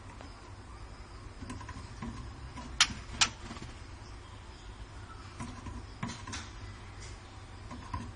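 Scattered faint clicks and ticks over a steady low hum, with two sharper clicks close together about three seconds in.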